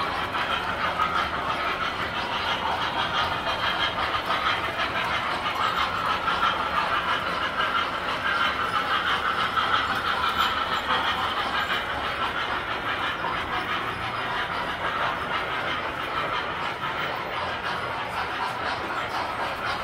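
Tinplate model trains running on metal track, a steady rolling clatter of wheels on rails.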